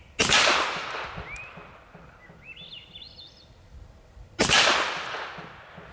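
Two shots from a BinTac T9 9mm semi-auto PCP air pistol, about four seconds apart, each a sharp crack that fades over about a second.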